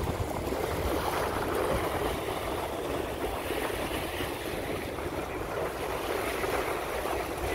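Small waves washing and breaking over shoreline rocks, a steady rush of surf, with wind buffeting the microphone.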